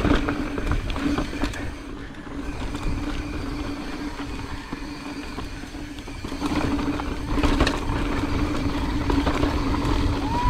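Mountain bike ridden over a rocky trail: a rumble and rattle of tyres and bike on rock with scattered knocks, a steady hum underneath, getting louder about six and a half seconds in.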